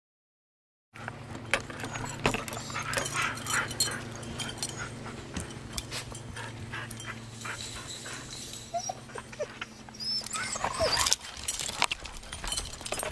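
Siberian huskies on a walk, giving short rising whines twice in the second half, over scattered clicks and rustles and a steady low hum that stops about two seconds before the end. The sound comes in only about a second in.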